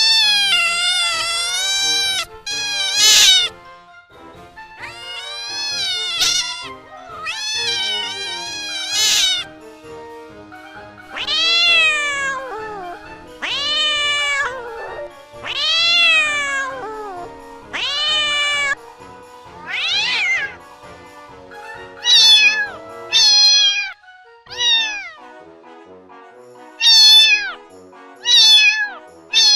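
A domestic cat meowing over and over, about a dozen separate meows, mostly long and drawn out with the pitch rising and falling, the later ones shorter and closer together. Soft background music with a steady beat runs underneath.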